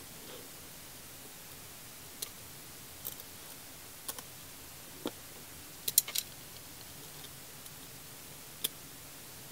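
Scattered light clicks and knocks of hard plastic as a small cooling fan and its plastic brackets are handled and pressed together by hand. The clicks are spread out, with the loudest cluster about six seconds in.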